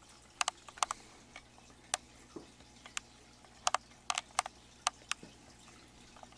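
A dozen or so sharp, irregular clicks and ticks in a quiet room, several coming in quick pairs.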